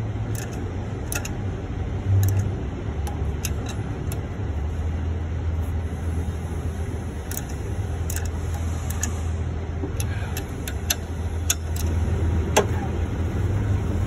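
Ratchet wrench tightening the bolts on a truck engine's fan hub: scattered sharp metallic clicks and clinks at irregular intervals, over a steady low hum.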